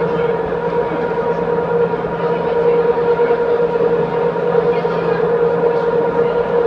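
Canal tour boat's engine running steadily, a constant hum with a held whine over a wash of noise.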